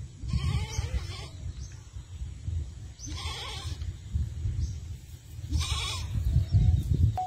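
A bleating animal calling three times, a couple of seconds apart, over a low rumble.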